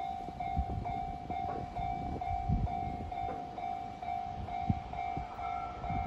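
Japanese railway level-crossing warning bell ringing its electronic clang, one tone repeating about twice a second, over an irregular low rumble. About five seconds in, a second, higher steady tone joins it.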